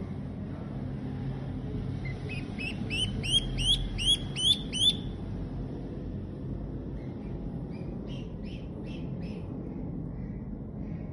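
Duckling peeping: a quick run of about a dozen high, sharp peeps, about four a second, then a few fainter, rougher peeps later, over a steady low hum.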